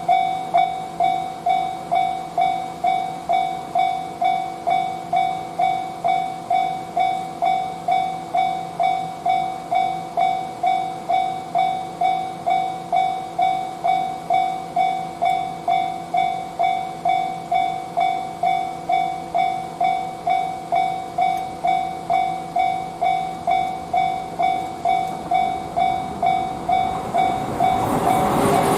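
Japanese railroad crossing warning bell clanging steadily at about two strokes a second, the alarm that sounds while a train approaches. Near the end the noise of a train coming through the crossing swells up under the bell.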